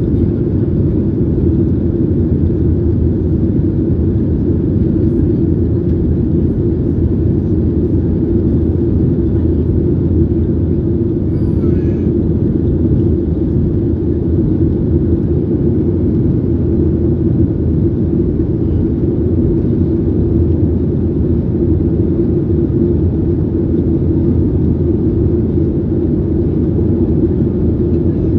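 Steady cabin drone inside a Boeing 737-800 in flight, heard at a window seat beside the wing: the CFM56-7B engines and the rush of air past the fuselage make a constant low rumble with a steady hum on top.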